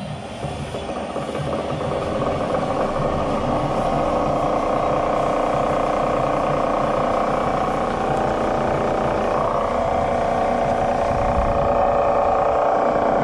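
Milford wet stone grinder's original three-phase motor, fed from a VFD, running up to speed over the first few seconds and then running steadily with its belt-driven stones turning.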